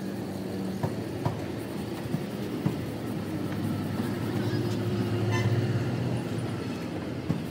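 An engine running steadily with a low hum, louder for a couple of seconds near the middle, with a few light ticks and taps.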